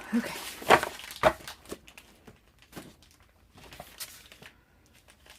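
Sheets of patterned cardstock being handled and laid down on a table: a few sharp slaps, the two loudest about a second apart near the start, with light paper rustling between them and fading out toward the end.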